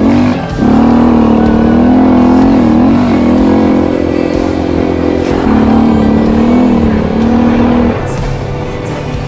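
Husqvarna single-cylinder enduro motorcycle engine running under throttle, its pitch dipping and rising several times as the throttle is rolled off and opened again. About eight seconds in the engine note drops lower and quieter.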